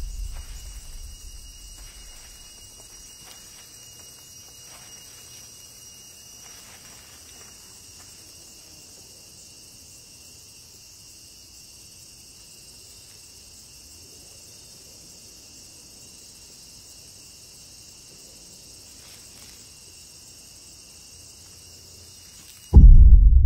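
Steady high-pitched chirring of crickets and insects in woodland, with faint soft barefoot footsteps on sand. A low rumble fades away over the first two seconds, and near the end a sudden loud deep boom cuts in.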